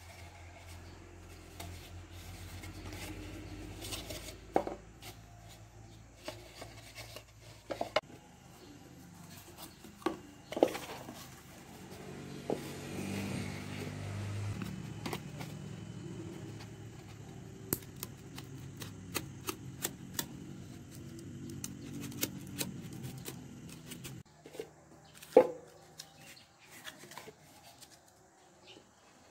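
Hands handling a styrofoam cup and cardboard on a hard tabletop: rubbing and scraping with scattered clicks and knocks, the sharpest about 25 seconds in. A low steady hum runs underneath and stops about 24 seconds in.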